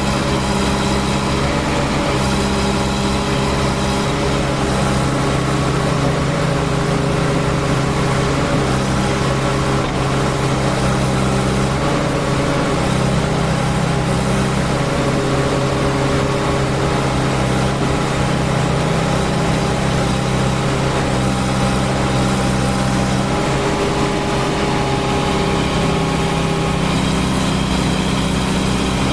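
JCB 3DX backhoe loader's Kirloskar diesel engine running steadily, its note shifting slightly a little after two-thirds of the way through and again near the end.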